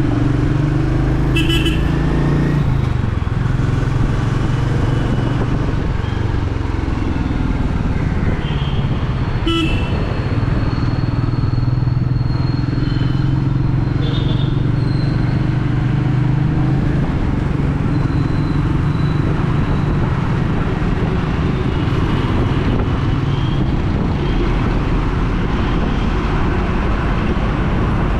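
Royal Enfield Meteor 350's single-cylinder engine running steadily while the bike cruises, under a constant rush of wind and road noise. Short horn toots from traffic sound a few times.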